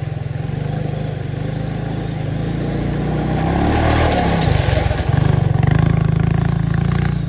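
Honda TRX500 quad's single-cylinder four-stroke engine running as it drives through shallow water, with a rush of splashing about four seconds in as it comes out onto the shore. The engine runs louder after that.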